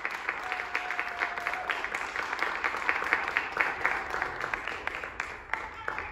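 Audience applauding with many hands clapping; the clapping thins out near the end.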